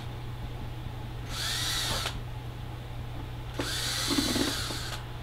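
Cordless drill-driver backing screws out of a skull mount's horn base, in two short runs that each spin up and wind down; the second, about three and a half seconds in, is the longer.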